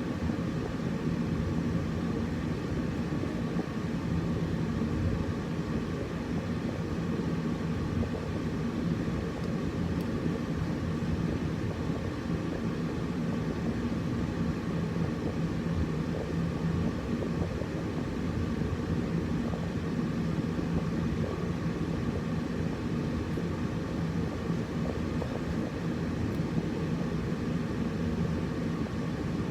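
Air conditioner running steadily: an even whooshing drone heaviest in the low range, with a faint constant hum.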